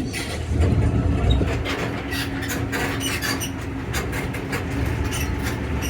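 Zoomobile tour tram running along the drive: a steady low rumble with frequent rattles and clicks from the cars, and a steady hum over the first few seconds.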